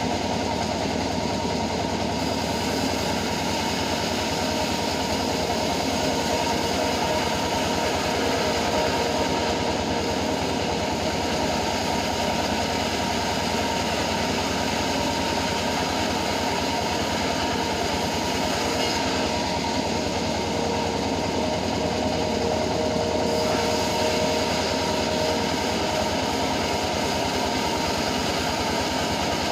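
Homemade band sawmill running steadily: a continuous mechanical drone from its engine and blade, with a fast, even rhythm.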